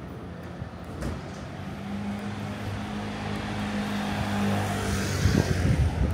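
Motor scooter engine running as it passes on the street, a steady hum that grows louder, breaking into a rougher rumble near the end, over general traffic noise.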